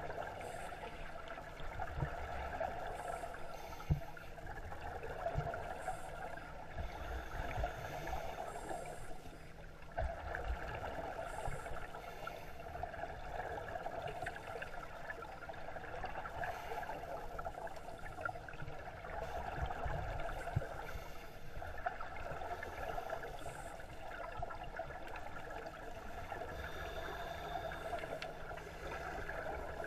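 Scuba divers' exhaled regulator bubbles heard underwater, a gurgling, bubbling rumble that swells and eases in waves of several seconds, with a few low thumps.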